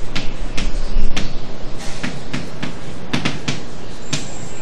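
Chalk writing on a blackboard: a string of sharp, irregularly spaced taps and short scratches as letters are written.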